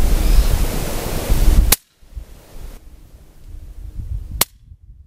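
Gusty wind buffeting the microphone, cut off abruptly by a sharp crack about two seconds in; a second sharp crack comes near the end against a much quieter background.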